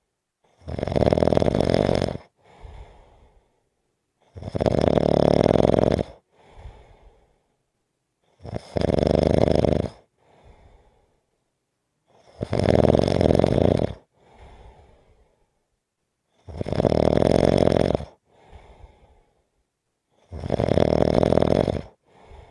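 Snoring: six loud snores at a steady pace of about one every four seconds, each followed by a shorter, much softer breath.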